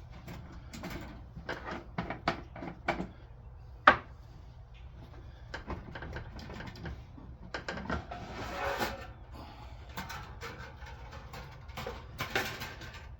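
Scattered clicks and knocks of objects being handled, the loudest about four seconds in, with two longer rustling, scraping noises around eight and twelve seconds over a low steady hum.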